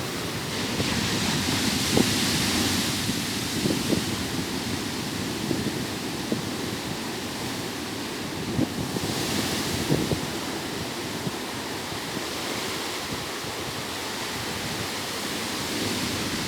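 Ocean surf washing onto a beach, a steady rush that swells twice as waves break, about a second in and again near the middle. Wind buffets the microphone with low thumps.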